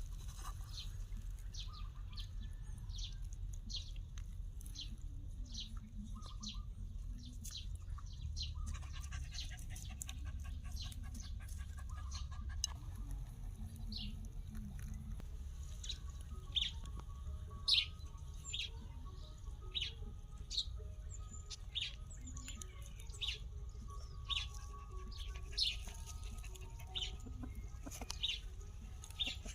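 A bird chirping repeatedly in short, high chirps, coming more often in the second half, over a steady low hum.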